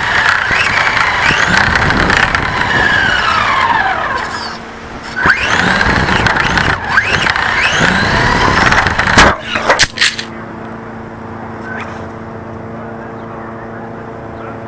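RC car's motor whining and rising and falling in pitch as it speeds up and slows, with tyre and gravel noise, for about ten seconds. A few sharp knocks follow, then a quieter steady hum.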